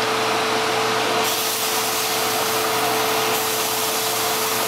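Pancake batter sizzling as it hits a very hot pan, a steady hiss that brightens about a second in, over a steady electrical or fan hum.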